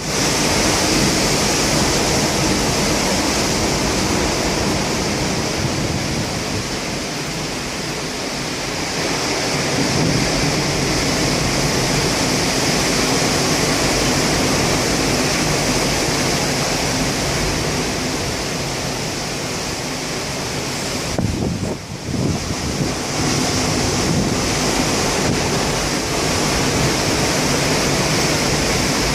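Rough, typhoon-driven sea surf as a loud, unbroken rush of water, with wind buffeting the microphone. The noise briefly dips and jolts about three-quarters of the way through.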